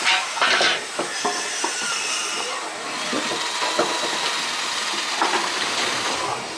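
Boatyard work noise: a steady hiss with scattered knocks and taps from work on the wooden hulls, and two short louder hissing bursts near the start.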